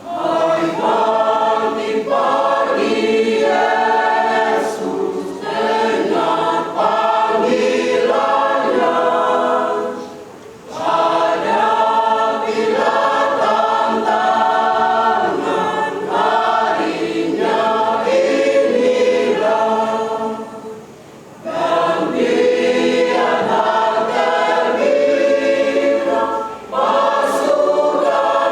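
Mixed youth church choir of young men and women singing a sacred choir song, in long phrases broken by short breaths about ten and twenty-one seconds in.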